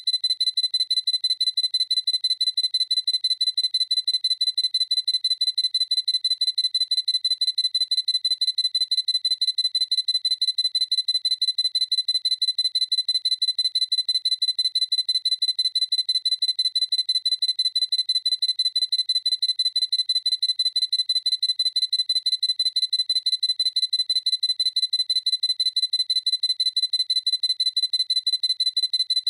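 Sony A7C camera's autofocus confirmation beep: a high-pitched electronic beep repeating rapidly and evenly, several times a second.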